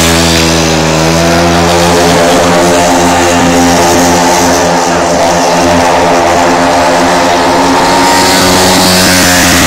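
Speedway bike's single-cylinder engine running loudly at fairly steady revs, rising slightly in pitch in the first second and then holding.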